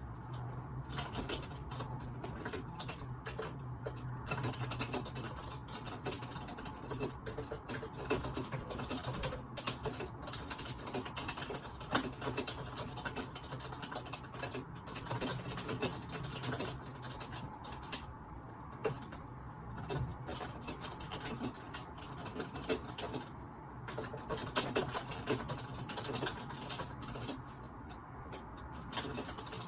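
Computer keyboard typing: quick, irregular key clicks in runs with short pauses, over a low steady hum, picked up by a phone microphone.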